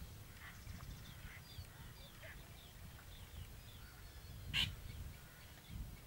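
Faint scattered chirps of birds over a steady low rumble, with one short, louder bird call about four and a half seconds in.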